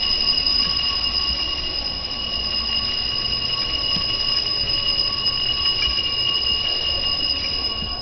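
Altar bell rung continuously in a steady, high, unbroken ring, marking the elevation of the chalice at the consecration of the Mass.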